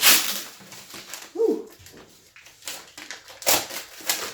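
Utility blade slicing through packing tape and cardboard on a box, in a few short rasping strokes, the strongest at the start. About a second and a half in, a short high-pitched cry rises and falls.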